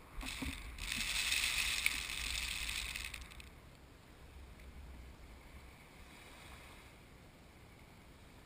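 Wind rushing over the microphone, with a low buffeting rumble, for about three seconds, then dying down to a fainter steady hiss.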